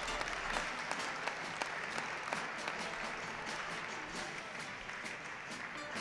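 Audience applauding, a dense patter of clapping that eases slightly toward the end.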